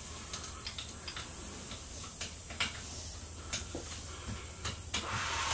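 Faint, irregular light clicks and ticks over a steady hiss: handling and footstep noise from a handheld camera being carried through a room.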